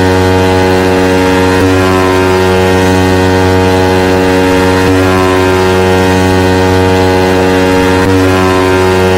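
Sound-system contest track: a loud, steady, buzzing low bass tone with many overtones, repeating as a loop about every three seconds.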